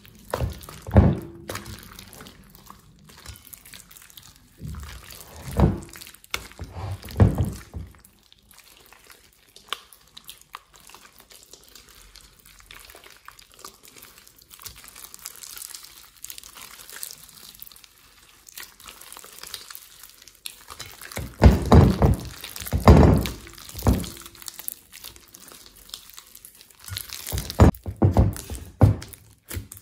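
Thick slime being kneaded and stretched by hand: wet squelching and dull thuds in several short clusters, loudest about two thirds of the way through, with quieter sticky handling noise in between.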